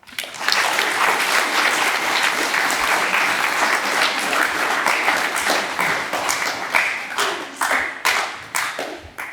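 Audience applause: many people clapping at once, thinning out to scattered claps over the last couple of seconds.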